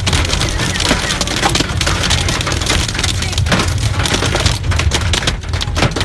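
Hailstones and heavy rain hitting the car's roof and windscreen, heard from inside the cabin: a dense clatter of hard hits over the low rumble of the car driving.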